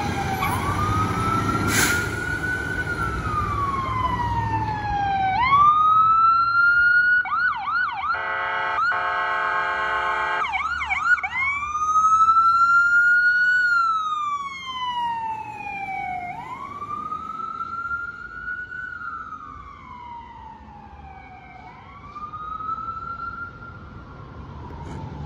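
Emergency-vehicle electronic sirens wailing in slow rising and falling sweeps. A few seconds in, quick chirping yelps and about two seconds of a steady blaring electronic horn tone break in. A diesel engine rumbles under the opening seconds.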